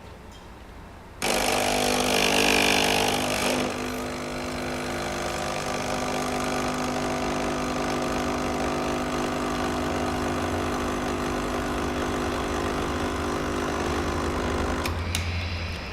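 Capsule coffee maker's pump brewing a cup: it starts about a second in with a steady hum, louder for the first couple of seconds, and runs on until it cuts off with a few clicks about a second before the end.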